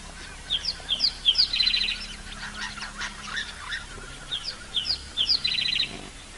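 A songbird sings the same short phrase twice, about four seconds apart: three quick descending whistled notes followed by a fast rattle.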